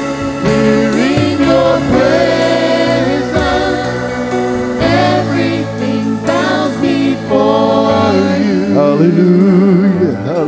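Gospel worship music: voices singing with vibrato over a band's held chords and sharp percussive hits.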